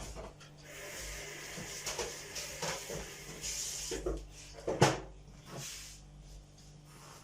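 Kitchen handling noises: soft rustling, a few light knocks, and one sharp knock about five seconds in, like a cupboard or fridge door closing or a container being set down.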